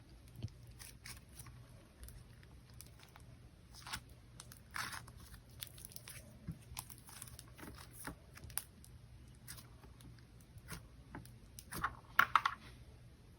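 Hands squishing and stretching butter slime: scattered soft, sticky clicks and crackles, with a louder crackling burst near the end.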